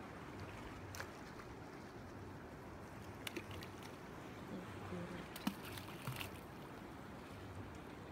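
Low, steady wash of water noise, with a few short, sharp clicks and taps scattered through it.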